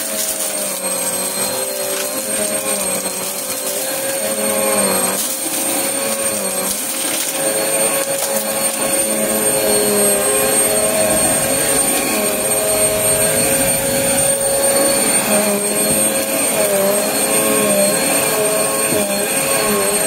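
Upright vacuum cleaner running steadily over carpet. Its motor pitch wavers a little with each push and pull, and there are occasional sharp ticks of debris going up into the machine.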